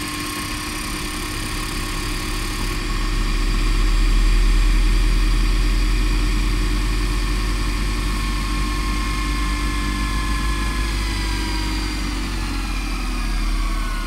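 Rewind sound effect: a steady mechanical whirring drone of several held tones over a low hum, swelling a little about four seconds in, its tones sagging slightly in pitch near the end.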